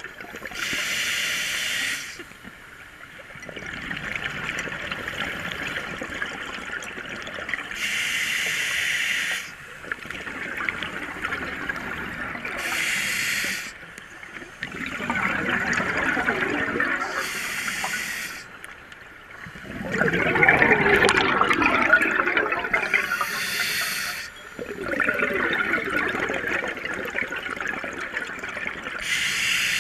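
Scuba diver breathing through an open-circuit regulator underwater: a short inhale through the regulator every five or six seconds, each followed by a longer stream of exhaled bubbles, the loudest exhale about twenty seconds in.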